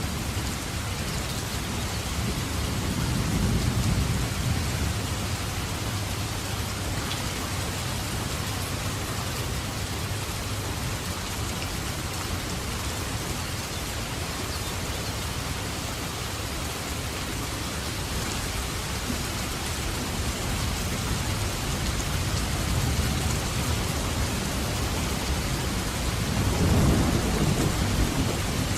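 Steady heavy rain with thunder rumbling low twice, a few seconds in and again near the end.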